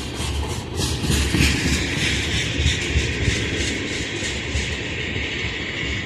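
Oil train of tank cars rolling past, wheels clacking in a steady rhythm over rail joints under a continuous rumble and hiss of wheels on rail.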